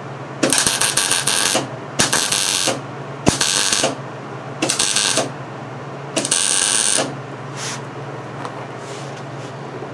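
MIG welder crackling through five short stitch-weld passes on a steel baler rail, each burst under a second, with brief pauses between. A steady low hum runs underneath.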